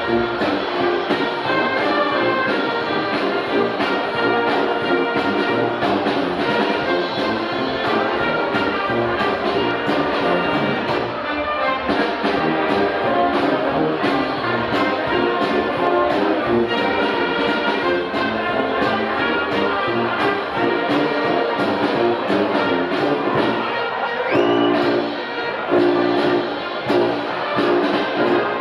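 Wind band playing a piece live: brass (trumpets, trombones, tubas) together with saxophones, clarinets and flutes.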